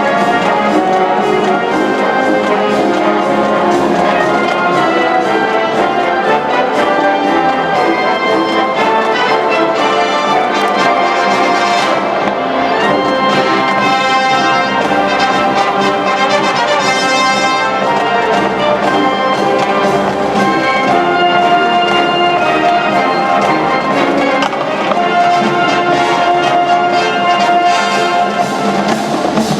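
High school wind band playing live, its massed brass of trumpets and trombones carrying a loud, steady passage of a marching-show number.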